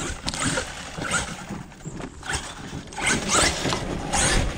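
Electric RC truck driven over loose dirt: the motor whines in short throttle bursts, a couple of them rising in pitch near the end, with the tyres scrabbling in the soil.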